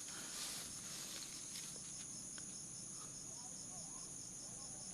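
Crickets and other insects chirping steadily: a high, even drone with a rapid chirp repeating about five times a second.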